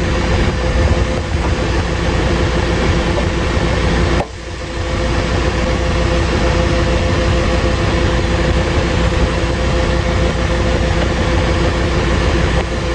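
Farm tractor engine idling steadily, with a brief dip in level about four seconds in.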